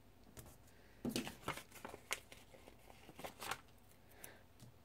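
Faint crinkling and light clicks of paper stickers and planner pages handled by hand, in a loose cluster of short crackles through the middle seconds.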